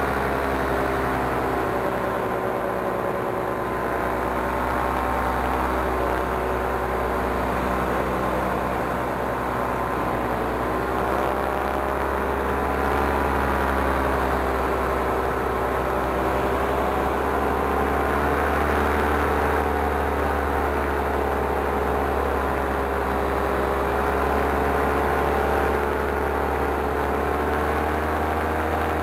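Paramotor engine and propeller running steadily in flight, the engine note drifting slightly up and down with the throttle, over a deep low rumble.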